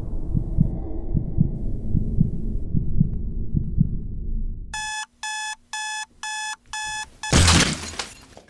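A low rumble with regular soft thuds fades out. Then an electronic alarm clock beeps five times, about two a second, and is cut off by a loud crash as a hand slams down on it.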